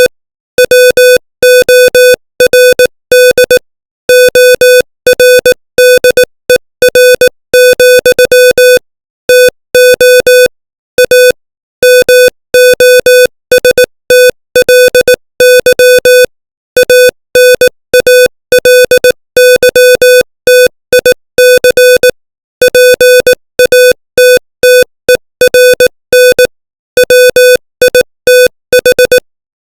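Morse code at 18 words per minute, spelling out English text: a single-pitch electronic beep keyed on and off in short dots and longer dashes, with short gaps between letters and longer pauses between words.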